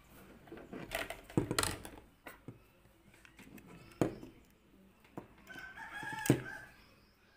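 Metal pliers clicking and scraping against an amplifier circuit board and its parts as a resistor is worked out, with sharp knocks about a second and a half, four and six seconds in. A rooster crows in the background for about a second shortly before the last, loudest knock.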